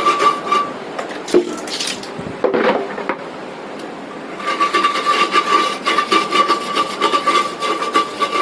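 Toilet brush scrubbing a porcelain toilet bowl in quick rasping strokes, with a steady thin squeak riding along. The scrubbing pauses for a few seconds while water is poured into the bowl from a plastic dipper, then resumes about four and a half seconds in.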